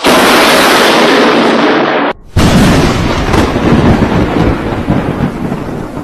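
Two thunderclaps from nearby lightning strikes. The first is a sudden, very loud crack with the flash, rumbling for about two seconds before it cuts off. A second clap hits a moment later and rolls on, slowly fading.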